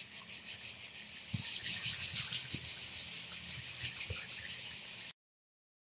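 Cicadas singing in the trees, a high pulsing buzz that grows louder about a second and a half in and cuts off suddenly near the end.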